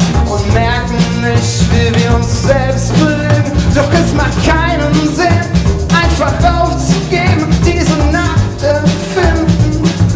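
Live band playing an upbeat pop-rock song, with drum kit, guitar and a singing voice.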